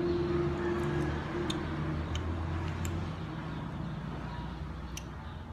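Background music fading out in the first second, then a low rumble of background noise. A metal spoon stirring in a small ceramic sauce bowl gives a few faint clinks.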